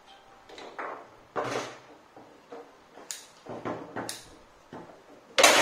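Foosball table in play: a run of sharp, uneven knocks and clacks from the ball and the rods striking the figures and table, with the loudest hit near the end.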